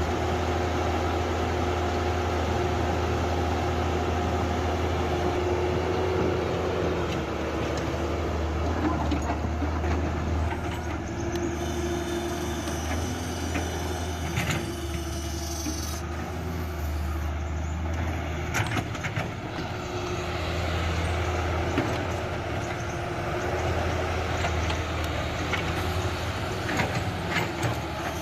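Mini excavator's diesel engine running steadily under work, with scattered knocks and clanks and a high-pitched squeal for a few seconds midway.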